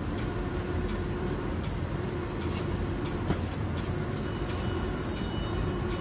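Automatic spray-painting machine running: a steady mechanical rumble with a constant hum, light scattered ticks, and one sharp click a little past halfway.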